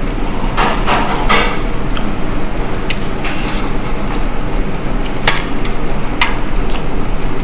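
Close-up eating sounds of someone chewing a mouthful of bibimbap eaten by hand, with a scrape of rice about a second in and a few sharp clicks of a metal spoon against the plate, over a steady background noise.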